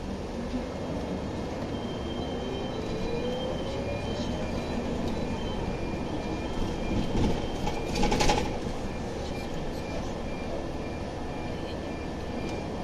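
Scania OmniLink city bus heard from inside the passenger cabin while driving: the engine and drivetrain run steadily, with a whine that rises over the first few seconds as the bus gathers speed. About eight seconds in there is a brief, louder rattle.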